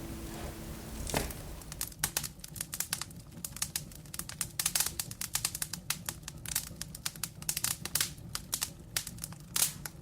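The last guitar note dies away in the first second. Then a wood fire in a fireplace crackles with irregular sharp pops and snaps.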